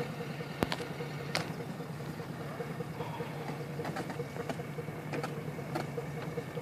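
A powerboat's single engine running steadily at low revs as it backs through a sheet of harbor ice, with scattered sharp cracks of the ice breaking against the hull.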